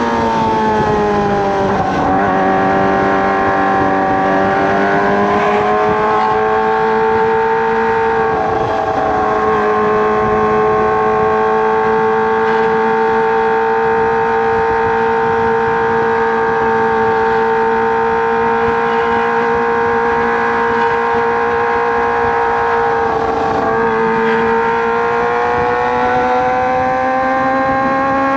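Kawasaki ZX-25R's 249 cc inline-four engine running through a Racefit Slash aftermarket exhaust while riding. The engine pitch falls over the first two seconds as the bike slows, then holds steady at a high cruising pitch. It dips briefly about 23 seconds in and rises again near the end.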